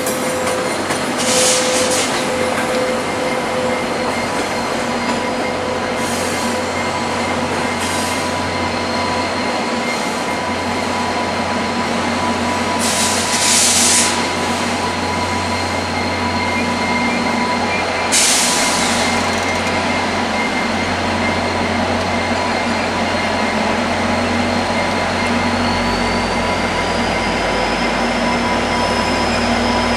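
Two VIA Rail F40PH-2 diesel locomotives hauling a long passenger train slowly out of the station, their engines running steadily with a whine. The whine rises in pitch and the low rumble grows stronger near the end as the locomotives come closer. Short high hisses break in a few times.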